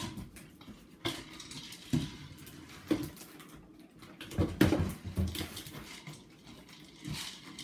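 Dog nosing and pawing a food-dispensing toy, with its lunch inside, across a hard floor. Irregular knocks and clatters come about a second apart, then a quick run of them about halfway through and another near the end.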